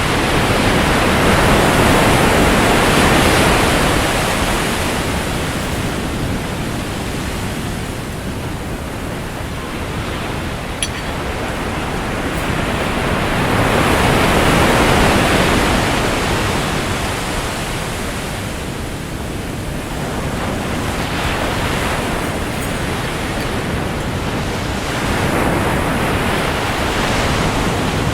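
Ocean surf breaking and washing onto a beach: a continuous rushing of water that swells and eases with each set of waves, loudest about a third of the way in, at the middle and near the end.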